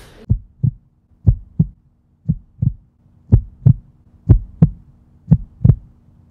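Deep heartbeat-style double thumps, one pair about every second, growing a little louder, over a faint steady hum: an edited sound effect leading into a logo sting.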